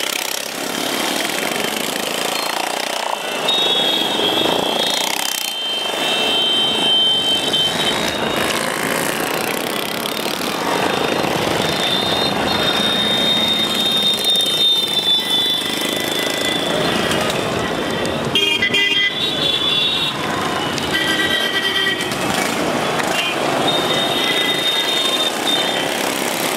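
Motorcycles and other traffic on a crowded road, with horns sounding again and again over a steady din. The horn notes are high and held for a second to a few seconds at a time.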